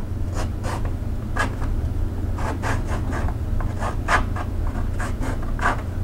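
A plastic credit card dragged hard across damp paint on heavy cold-press watercolor paper in a run of short, irregular scrapes, about two or three a second, lifting paint out to texture rock faces.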